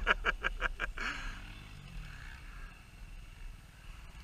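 A man laughing in quick, even bursts for about the first second, then faint enduro motorcycle engines running in the distance.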